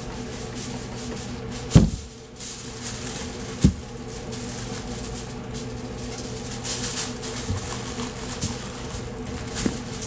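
Aluminium foil crinkling and rustling as it is folded around a brisket, loudest a little past the middle. Two sharp knocks come about two and four seconds in, over a steady low hum.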